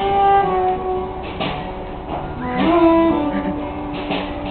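Live band playing a song, with strummed guitar under long held melody notes.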